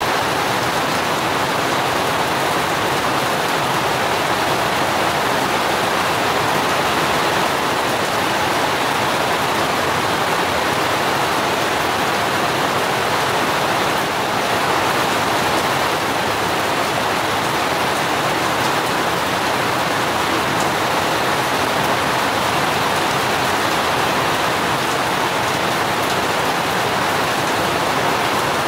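Steady rain falling on garden plants, an even hiss with no thunder or single drips standing out.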